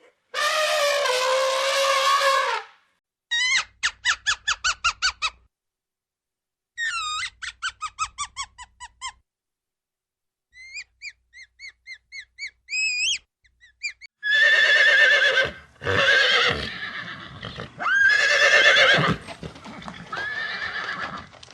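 A sequence of different animal calls played one after another with short silences between them. It opens with a long pitched call, then two runs of rapid pulsed calls, then a string of short high chirps, and ends with louder calls that rise and fall.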